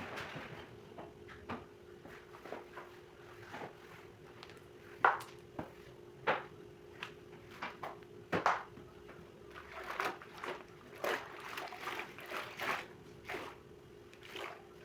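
Irregular knocks and clinks of kitchen items being handled during cleaning, the sharpest about five seconds and eight seconds in, over a steady low hum.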